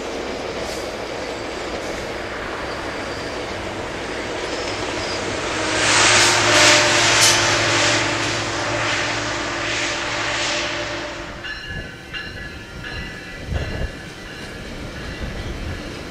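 Metrolink commuter train with an EMD F125 diesel-electric locomotive going by: a steady rumble that builds to a loud peak about six seconds in, with the steady drone of its 20-cylinder Caterpillar engine under the rail noise. About eleven seconds in the sound changes abruptly to something quieter, with intermittent high, ringing tones and a few low thumps.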